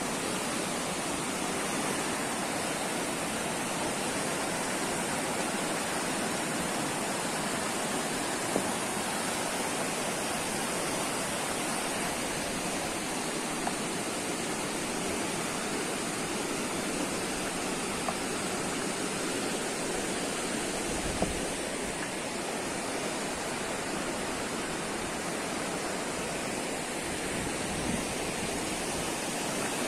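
River water rushing steadily over shallow rapids, a continuous white-water noise, with a few faint knocks.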